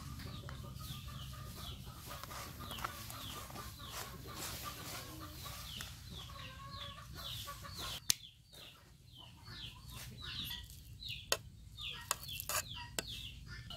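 Chickens calling: a steady run of short, falling chirps and clucks. A few sharp clicks or knocks come in the second half.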